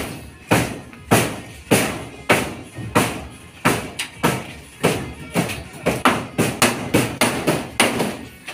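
Repeated hammer blows from a worker on the roof framing, sharp ringing strikes about one or two a second that quicken in the second half.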